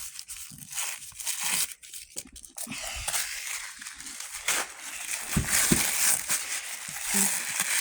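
Paper wrapping on a small gift being torn and crumpled as it is opened, an irregular crinkling and ripping.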